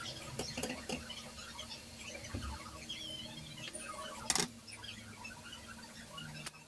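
Semolina bread squares cooking in fat on a flat griddle, with faint crackling and ticking as they brown, and one sharp click about four seconds in.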